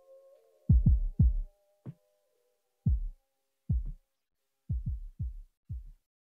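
Music with a run of deep, decaying thumps in an uneven, heartbeat-like rhythm. A few held tones fade out in the first two seconds.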